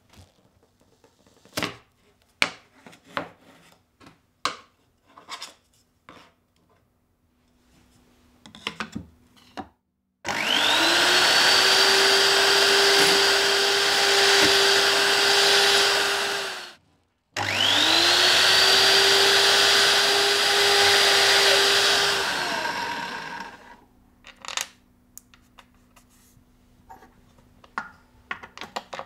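Electric drill boring a twist bit through a plastic plate, run twice: each run spins up with a rising whine, then holds steady for about six seconds before stopping. Light clicks and taps of handling the parts come before and after the drilling.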